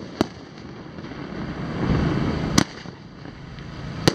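A 500-gram 'Snow In Spring' fireworks cake firing its shots: three sharp bangs, one just after the start, one about two and a half seconds in and one near the end. A low rumbling noise swells up between the first two bangs.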